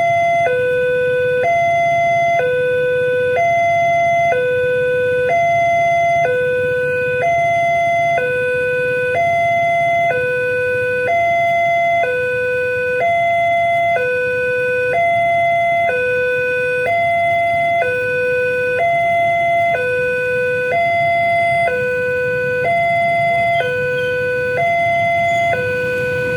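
Railway level-crossing warning alarm sounding a steady two-tone hi-lo signal, switching between a lower and a higher tone a little under once a second. It is the warning that a train is approaching the crossing.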